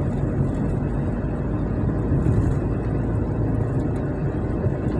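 A car driving along an asphalt road at a steady speed, heard from inside the cabin: a steady low rumble of tyres and engine.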